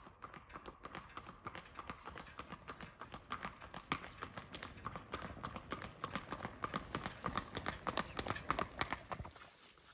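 A horse's hooves clip-clopping on asphalt as it pulls a two-wheeled cart, the hoofbeats growing louder as it approaches and cutting off near the end.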